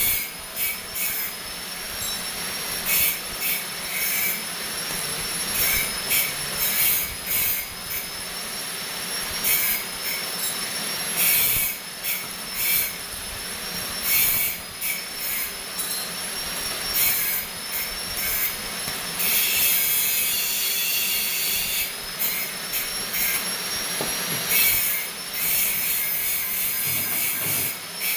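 Electric arc welding on steel: the arc crackles and sputters in uneven bursts over a steady high-pitched whine.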